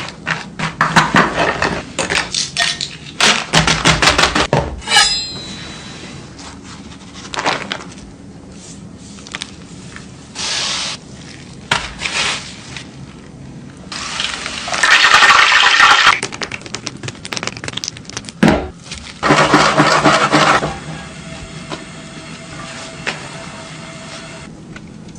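Kitchen food-preparation sounds: a quick run of knocks and clatters, then several bursts of rushing, hissing noise, the longest and loudest about halfway through and again a few seconds later, followed by a faint steady hum.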